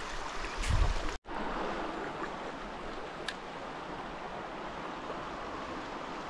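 River water running steadily. There is a brief low thump about a second in, and just after it the sound cuts out for an instant. A faint click comes near the middle.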